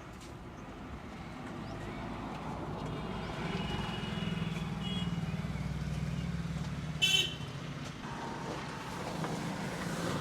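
Passing roadside traffic: a vehicle engine hum swells and fades, with a short horn toot about seven seconds in.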